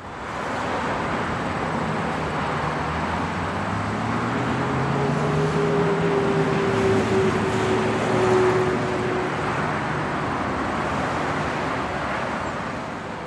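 Road traffic: a motor vehicle's engine hum and tyre noise with a whine, building to a peak about two-thirds of the way through and then easing off.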